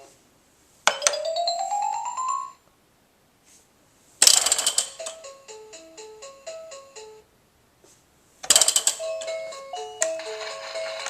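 Electronic sound effects and short jingles from a VTech Winnie the Pooh Roll 'n Learn Tree baby activity toy. A click and a rising whistle-like glide come about a second in. Two short beeping tunes follow, each opening with a loud rattling burst.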